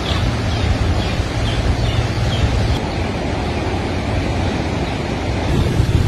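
Wind buffeting the microphone over the steady rush of a fast-flowing, flooded river.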